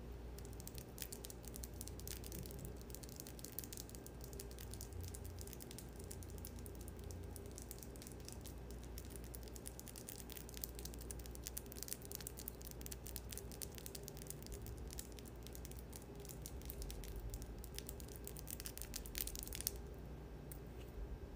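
Fingertips and long fingernails rubbing together close to the microphone, a dense fine crackling that stops suddenly a little before the end.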